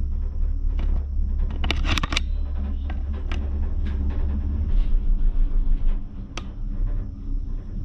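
Steady low rumble inside an enclosed gondola cabin as it rides the cable. A quick cluster of clicks and knocks comes about two seconds in, with single clicks later, as the camera on its handheld pole is turned around.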